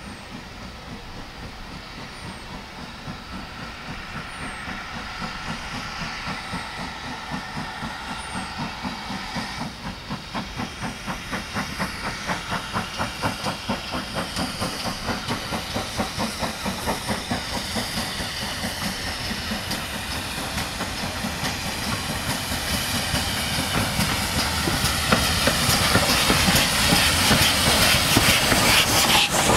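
GWR Manor class 4-6-0 steam locomotive No. 7827 Lydham Manor working a train of coaches, with steam hissing. Its exhaust beats in a steady rhythm that becomes plain about a third of the way in and grows louder as the engine draws close.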